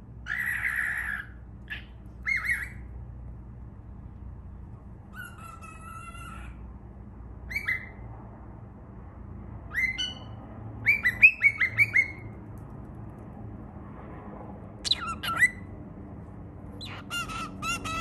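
Young cockatiel calling: short pitched chirping calls scattered through, starting with a longer, rougher call. A quick run of about five comes near the middle, and another cluster near the end.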